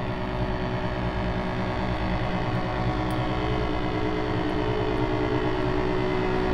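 Chromatic button accordion holding a dense, sustained drone of many notes at once, one middle note standing out steadily over a rumbling low register.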